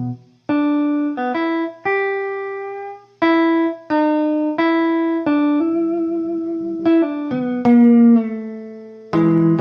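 A blues lick played one note at a time on guitar, slowly, each note ringing out and dying away. A few notes are bent in pitch.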